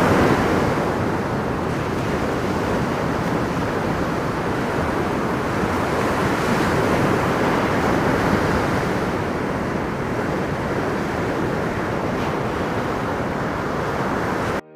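Ocean surf breaking in a steady wash, with wind noise on the microphone; it cuts off suddenly near the end.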